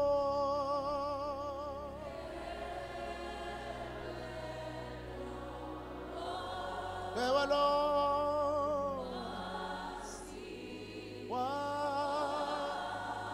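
A slow, drawn-out hymn sung by a congregation, with a lead voice holding long notes with a wide vibrato three times, the last starting near the end.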